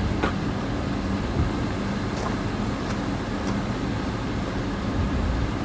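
Steady roadside vehicle rumble with a low hum, broken by a few faint light clicks and knocks.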